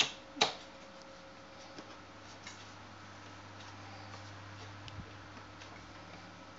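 Two sharp clicks in quick succession right at the start, then a few faint scattered ticks over a low steady hum.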